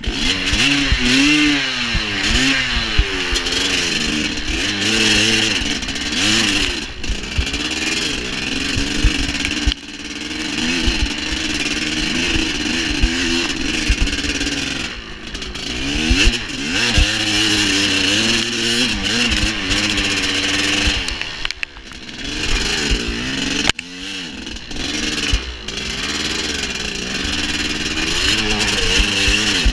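Dirt bike engine being ridden hard along a rough trail, its pitch rising and falling over and over as the throttle opens and closes through the gears. There are a few brief drops in level where the throttle is shut off.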